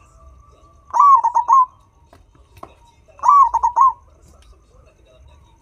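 Turtledove cooing twice, each call a drawn-out first note followed by three short quick notes.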